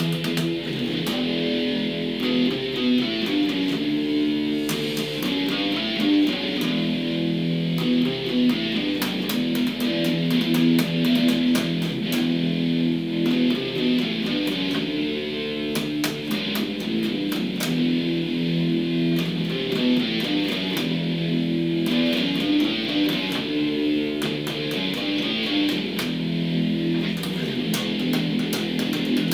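Electric bass guitar played with the fingers: a riff that repeats about every four seconds.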